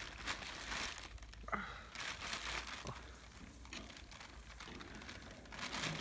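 Plastic bag crinkling and rustling in irregular bursts as goats tug and chew at it.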